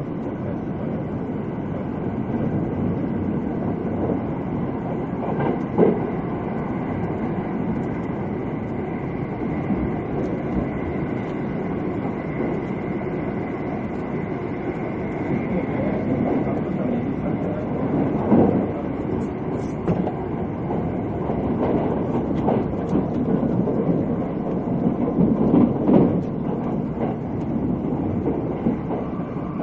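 Thunderbird limited-express electric train running at speed, heard inside the passenger cabin: a steady rumble of wheels on rail with a faint steady whine, broken by a few louder knocks.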